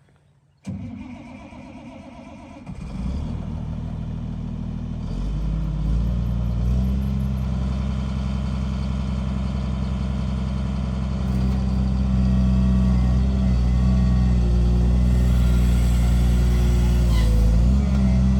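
Diesel engine of a Caterpillar 336D hydraulic excavator running. The sound comes in abruptly about a second in, steps up in engine speed twice within the first few seconds, then runs steady.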